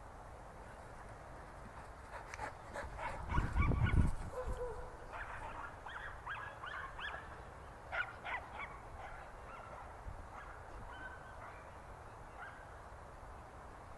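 A dog barking in a run of short, high-pitched barks from about five seconds in until near the end, after a loud low rumble about three seconds in.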